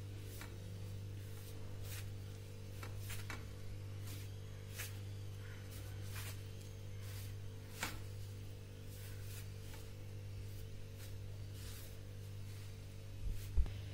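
Hands mixing flour and curd into dough in a steel plate: a run of soft rubbing and scraping strokes against the metal, over a steady low electrical hum. A low thump comes near the end.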